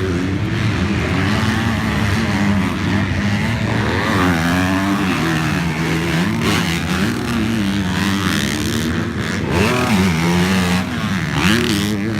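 Dirt bike engine being ridden, revving up and down over and over as the throttle is worked.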